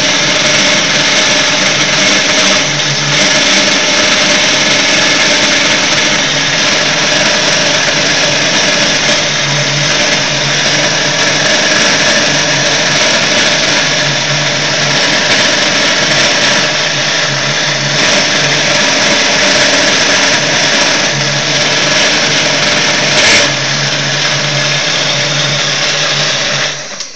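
Chinese 7x12 mini-lathe running with a steady mechanical whine and hiss while an HSS tool turns an acetal (Delrin) workpiece; the lathe is switched off near the end and the noise stops suddenly.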